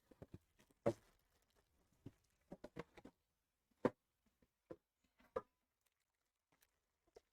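Light, irregular taps and clicks of trading cards and their packaging being handled on a table, a handful of soft knocks spread over several seconds with short pauses between them.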